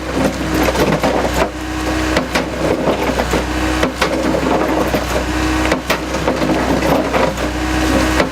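Hydraulic crusher bucket on a Takeuchi TB175 excavator crushing concrete and sandstone: the machine's engine hums under hydraulic load while the reciprocating jaw crunches and cracks the rubble. The pitch of the running shifts every couple of seconds.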